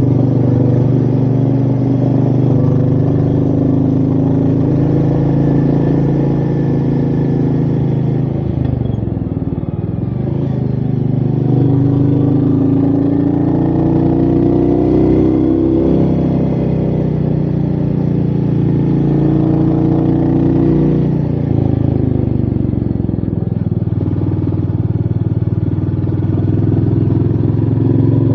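Royal Enfield Meteor 350's single-cylinder engine running under load on the move, its note dipping and then climbing again three times, with wind rushing over the microphone.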